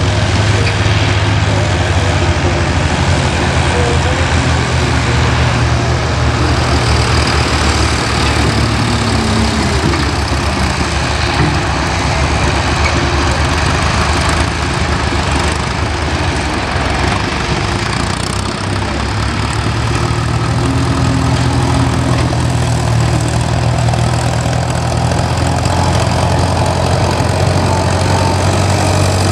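Farm tractor engines running steadily as they pull cultivating implements, a low engine drone that weakens for several seconds in the middle and then comes back.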